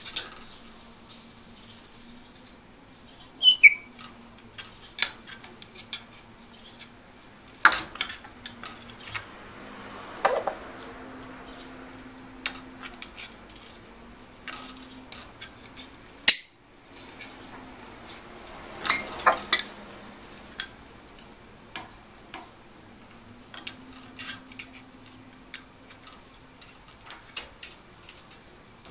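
African grey parrot making scattered clicks and pops in imitation of bubbles in bath water, some in quick clusters, with a short falling whistle a few seconds in.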